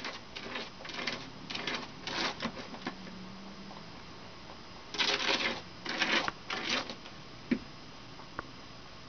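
English lop rabbit scratching and tearing at cardboard in short rasping bursts, one cluster in the first three seconds and a louder one about five to seven seconds in, followed by two sharp clicks.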